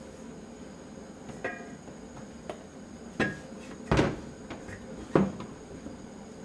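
Thick wooden hagama lid being handled and set down on a stainless steel counter: four wooden knocks, the loudest about four seconds in, two of them leaving a brief metallic ring.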